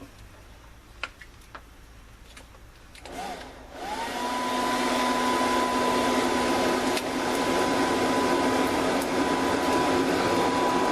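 Small electric fan blowing air into a forge fire, switching on about four seconds in and spinning up to a steady whirring rush of air with a constant whine.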